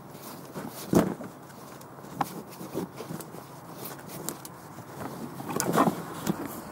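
A canvas sheet rustling and rope being handled as the cover is untied from a traction engine's wheel, with scattered knocks and scuffs. The loudest knock comes about a second in, and a longer burst of rustling comes near the end.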